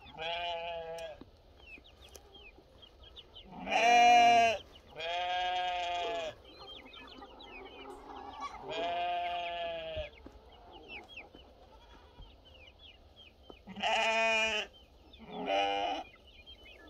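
Goats bleating, six long calls about a second each with gaps between, the loudest about four seconds in. Chickens cluck softly throughout in the gaps.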